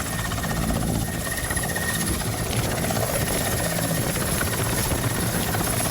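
Helicopter running, its rotor blades making a steady, rapid chop over the engine.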